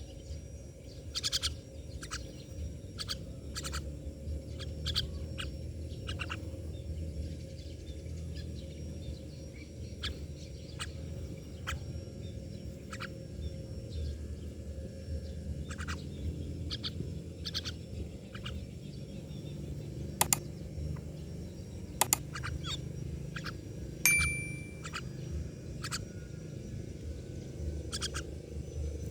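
Myna birds calling: scattered short, sharp chirps and clicks, with one brief held whistle near the end, over a steady low background rumble.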